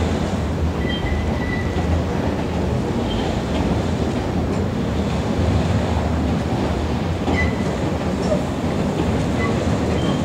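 Electric commuter train running across a steel truss railway bridge: a steady rolling rumble with a few brief, faint high wheel squeals.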